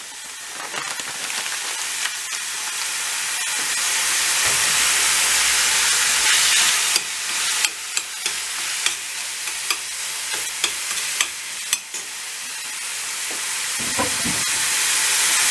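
Ground beef sizzling in hot oil in a stainless steel frying pan over high heat, the sizzle growing louder over the first few seconds. A metal spoon clicks and scrapes against the pan several times in the middle as the meat is stirred.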